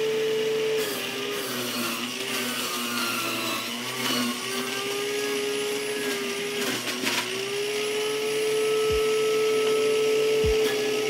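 Electric centrifugal juicer running with a steady motor whine; the pitch sags and recovers several times as celery stalks are pushed down the feed chute and shredded.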